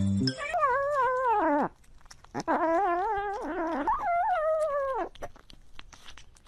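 Domestic cat making several drawn-out, wavering calls while eating wet food. The calls are picked up close by a microphone in its bowl and stop about five seconds in, leaving faint chewing clicks.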